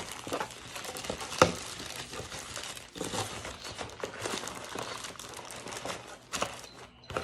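Packaging crinkling and rustling as it is handled, with many small clicks and one sharp click about a second and a half in.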